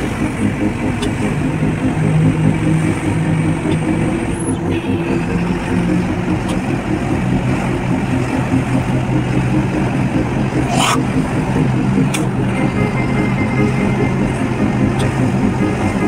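A vehicle's engine running steadily while driving, heard from inside the cab with road noise. A single short sharp click comes about two-thirds of the way through.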